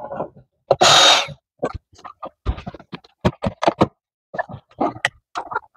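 A screw being driven in by hand to fasten a plastic door window switch tray. A short scraping rush comes about a second in, then a long run of irregular short clicks and squeaks from the screwdriver and the plastic.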